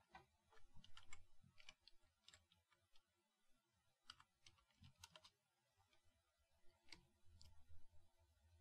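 Faint computer keyboard typing: irregular, scattered keystroke clicks.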